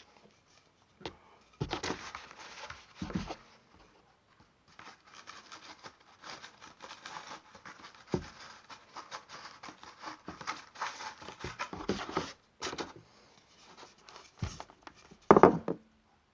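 Close handling noises: rustling and scraping as a glued fishing pole top-kit section is rolled in carbon dust, with several knocks, the loudest near the end.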